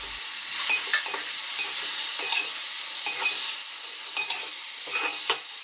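Chopped tomatoes frying and sizzling in hot oil with onions in a metal pan, while a steel spoon stirs them, clinking and scraping against the pan again and again.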